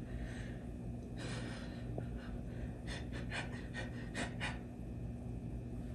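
Soft breaths, then a quick run of about eight short crackles about three seconds in.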